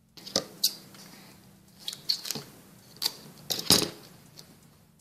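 Duct tape being pulled off the roll and torn: a series of short rips and clicks, the loudest near the end.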